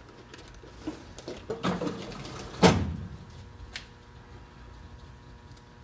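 Small items being handled and rummaged through on a workbench: a few light clicks and rustles, then one sharp knock about halfway through and a faint tick a second later.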